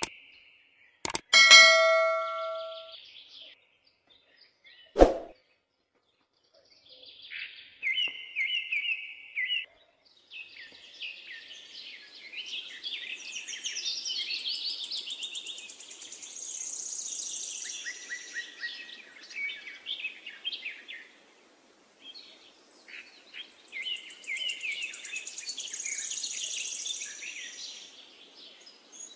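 A click and a bell-like ding about a second and a half in, from a subscribe-button sound effect, and another click about five seconds in. Then birds chirping and trilling for the rest.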